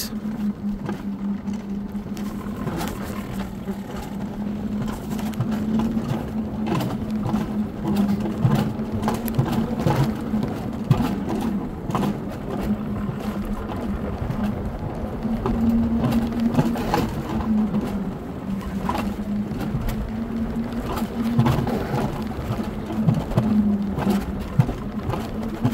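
Alpine coaster sled running down its tubular steel rails without braking: a steady drone from the wheels, with frequent clicks and rattles as the sled rolls over the track.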